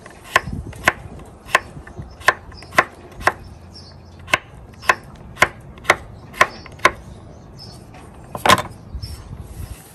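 Knife slicing peeled cocoyam into thin pieces, each cut ending in a sharp knock, about twice a second for some seven seconds. A single louder knock comes near the end.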